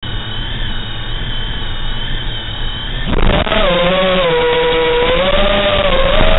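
5-inch FPV racing quadcopter's brushless motors and propellers (T-Motor 2207.5 1750KV): a thin, steady high whine over hiss while armed at low throttle, then about three seconds in the throttle comes up and a strong buzzing hum sets in, its pitch rising and falling with the throttle as the quad flies.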